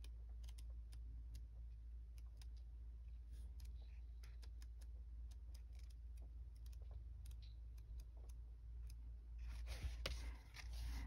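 Faint handling of a pad of vintage scrapbook papers as its pages are leafed through: scattered light clicks and paper rustles, with a louder rustle near the end.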